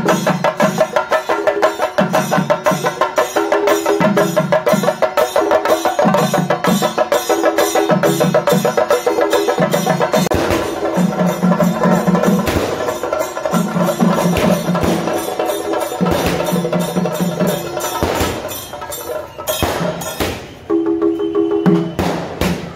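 Kerala chenda drums beaten fast with sticks: a dense, steady roll of strokes over a repeating low pitched figure. In the second half the drumming thins and louder sharp cracks break in, as firecrackers go off.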